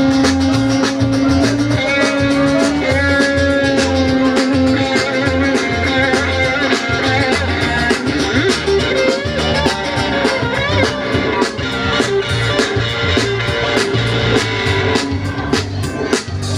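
Live rock/reggae band playing an instrumental break: a guitar solo with held and bent notes over drums and bass keeping a steady beat.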